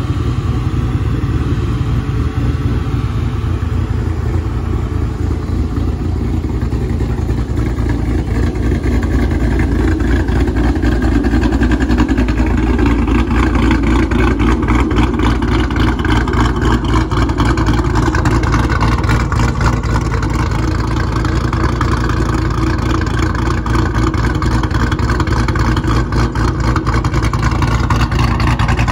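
Ford Shelby GT500's supercharged V8 idling with a deep, choppy rumble through Corsa Xtreme exhaust tips, the engine fitted with aftermarket cams. It runs steadily and loud, a little stronger from about ten seconds in.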